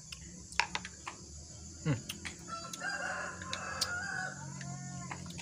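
A rooster crowing in the background: arched, wavering calls from about halfway through until near the end. Before it come a few sharp clicks.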